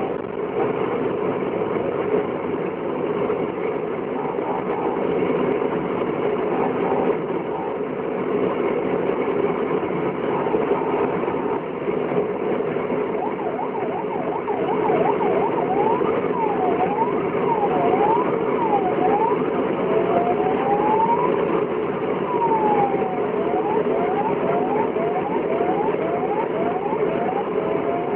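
Steady drone of a vehicle engine and road noise. From about halfway in, a siren sounds over it, cycling through quick repeated rising yelps, slower falling-and-rising wails and long up-and-down glides.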